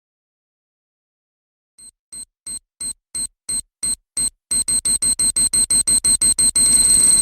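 Phonk track build-up: silence for nearly two seconds, then a repeated high-pitched electronic pulse that speeds up and gets louder, merging into a steady sound near the end.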